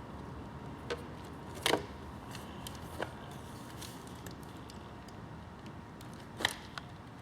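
A few light clicks and knocks from the parts of a radio-controlled truck being handled during disassembly: four short sharp ones, the loudest under two seconds in and the last near the end, over a faint steady hiss.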